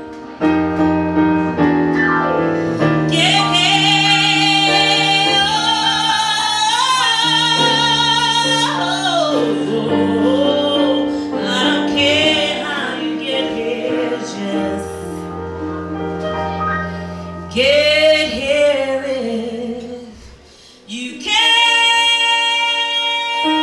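A woman singing an R&B song live, her voice wavering with vibrato over sustained electric keyboard chords. The music drops away briefly near the end, then comes back in full on a long held note.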